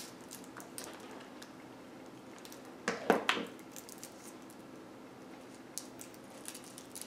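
Faint rustling and light clicks of foil-wrapped strawberry-filled hard candies being handled and pressed onto a paper cone, with a brief louder crinkle about three seconds in.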